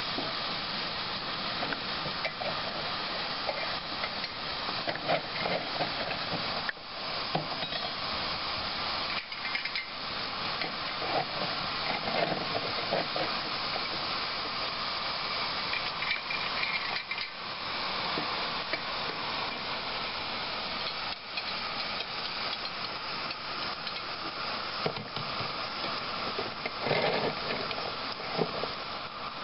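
Steady hiss of steam escaping from a miniature live-steam locomotive while it is being raised in steam, with a few light clinks and scrapes of metal.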